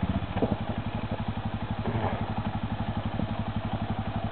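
Arctic Cat quad's single-cylinder four-stroke engine running at low revs with a steady low beat, about thirteen beats a second.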